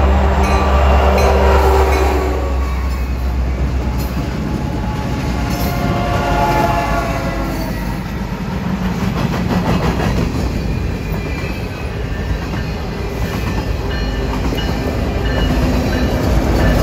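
Freight trains passing close on parallel tracks. Diesel-electric locomotives drone by first, then loaded covered hoppers roll past with steady wheel clickety-clack. A train horn sounds briefly about five to seven seconds in, and near the end another set of locomotives draws level and their engine drone swells again.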